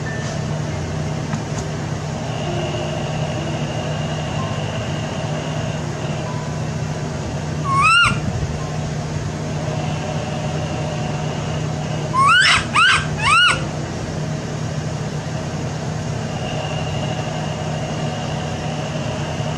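Infant macaque giving short, high-pitched coo calls, each rising then falling in pitch: one about eight seconds in, then three in quick succession around twelve to thirteen seconds. A steady low hum runs underneath.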